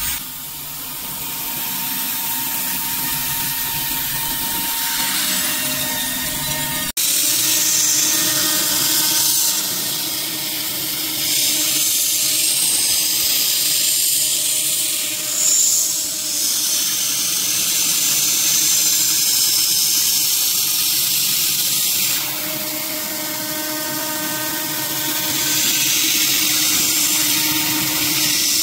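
PrintNC Pro CNC router's spindle running steadily as an end mill cuts 6061 aluminium, including a chamfering pass, under a strong hiss from the nozzle blowing at the cutter. The sound changes abruptly about seven seconds in.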